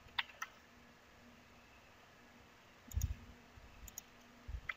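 Faint computer mouse clicks, a couple of sharp ones just after the start and one later. Soft low thumps at about 3 seconds and again near the end, over quiet room tone.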